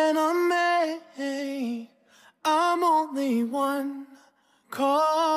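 A single unaccompanied voice singing a slow melody in several short phrases of held notes, with brief breaks between them.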